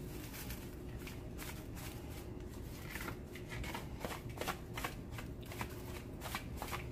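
Sea salt rattling inside its container as it is shaken over raw ground beef, in a steady run of quick, uneven shakes.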